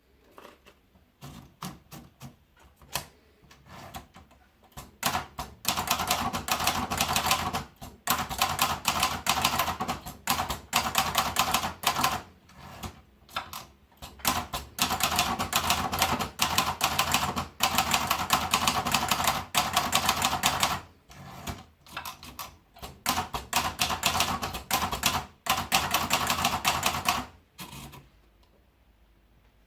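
Olivetti Tropical manual portable typewriter being typed on. A few scattered keystrokes come first, then long runs of rapid clattering keystrokes separated by short pauses.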